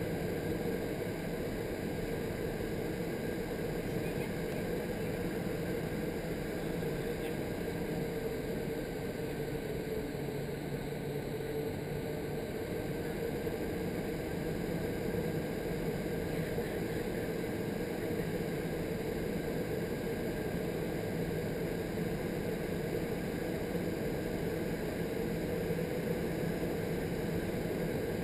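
Indoor skydiving vertical wind tunnel running steadily: a constant rush of high-speed air through the flight chamber over a steady drone.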